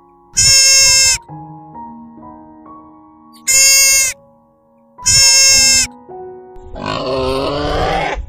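Three loud, high-pitched calls of a hoofed grazing animal, each under a second long, over background music with held notes. From about two-thirds of the way through, a wild boar grunting.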